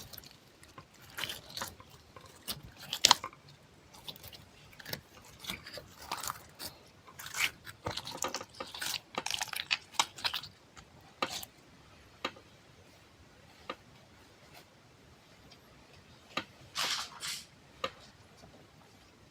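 Close-miked ASMR sounds of something soft: irregular short squishes, crunches and sticky clicks, coming in bunches with pauses between them, thinning out in the second half and returning in a brief flurry near the end.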